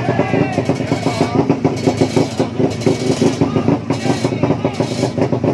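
Drag-race motorcycle engines running, mixed with voices over a constant crowd din.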